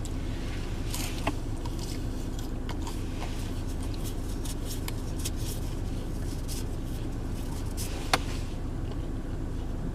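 A person chewing a mouthful of waffle fry, with faint mouth clicks and one sharper click about eight seconds in, over the steady low hum of a running car inside its cabin.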